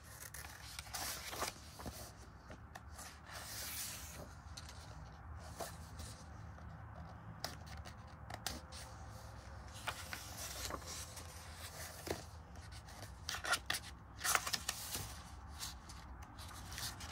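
Paper pages of a paperback colouring book being turned by hand, with irregular short rustles and brushing of paper as each page flips over.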